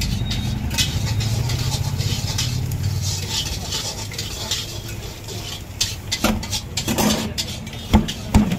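Metal spatula clinking and scraping on a flat iron tawa as layered parathas are flipped, over a low rumble of passing traffic. Near the end, hands start slapping the stack of cooked parathas on a steel counter in sharp, even slaps, the usual way of loosening the layers.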